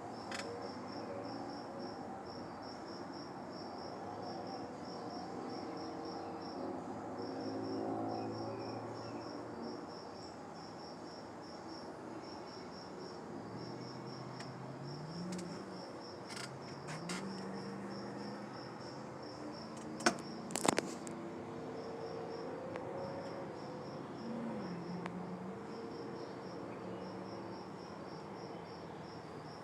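Insects chirping in a steady, rapid pulsing rhythm, typical of crickets on a summer evening. A low hum rises in pitch several times in the second half, and a few sharp clicks about two-thirds through are the loudest sounds.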